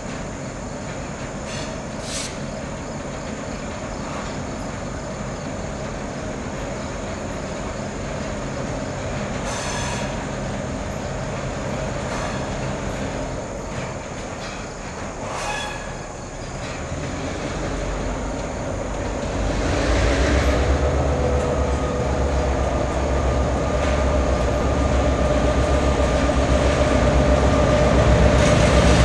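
Freight train of empty trash cars rolling along the track, its wheels running with a thin, steady squeal. About two-thirds of the way through, a deep rumble joins in and keeps getting louder.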